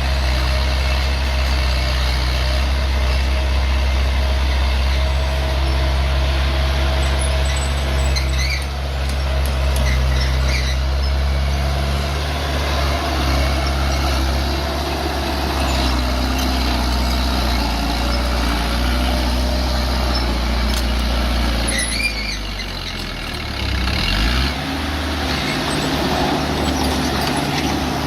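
Bulldozer's diesel engine running steadily under load, with a few short high squeals. About two-thirds of the way through, the engine drops in pitch and then climbs back up.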